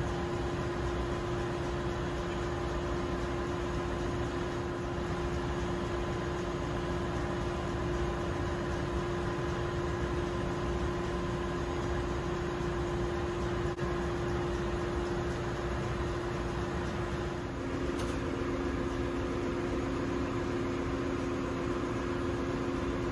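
Steady drone of ship's engine-room machinery, with a few constant hum tones; a second, lower hum joins about three-quarters of the way through.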